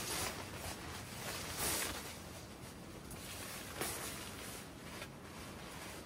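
Tent fabric and mesh netting rustling and swishing as they are handled and pushed about by strong wind, with louder swishes near the start, about two seconds in and about four seconds in.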